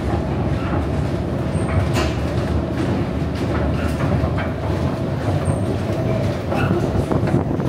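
Metro-station escalator running: a steady mechanical rumble from the moving steps and drive, with scattered clicks and clacks.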